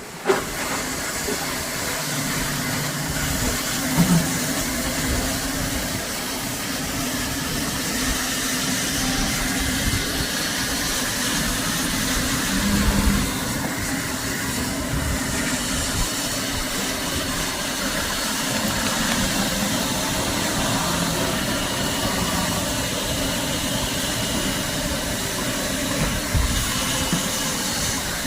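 Hot-air welder blowing with a steady hiss while heat-welding single-ply roofing membrane, with a few short knocks along the way.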